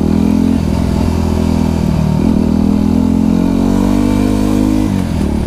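Motorcycle engine running at low speed in traffic. Its note climbs steadily from about two seconds in, then drops off near the end as the throttle closes.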